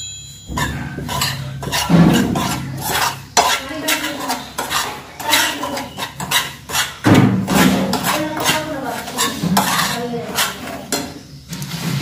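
Metal spoon scraping and clinking against a frying pan as dry flour is stirred and roasted, in a run of short, uneven strokes with a few louder knocks along the way.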